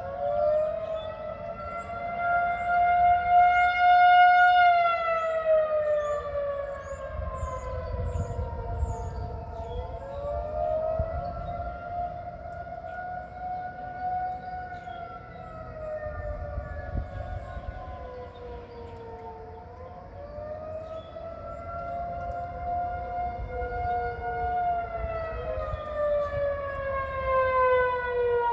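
Several outdoor tornado warning sirens wailing together in a monthly test, each one slowly rising in pitch, holding, then falling, out of step with the others so the tones overlap and cross.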